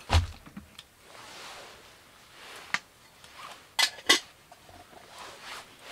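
Four sharp knocks or clinks, like pots and utensils being handled: one at the start, one near three seconds in, and a close pair about four seconds in, with soft rustling between them.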